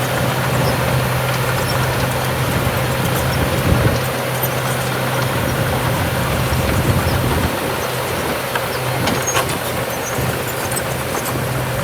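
Diesel engine of a small crawler bulldozer running steadily, with light clicks and rattles over it.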